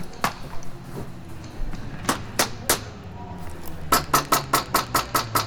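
Airsoft rifle shots: one crack, then three about a third of a second apart, then from about four seconds in a fast, even string at about five shots a second.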